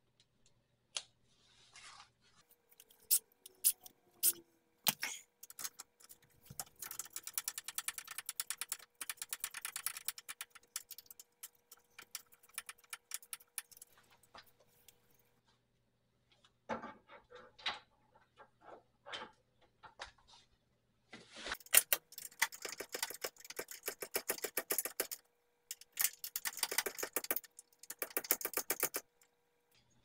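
Hand ratchet wrench clicking in two long runs of rapid clicks, separated by a pause with a few single metallic knocks, as the mounting bolts of a rear disc brake caliper are turned out to remove the caliper.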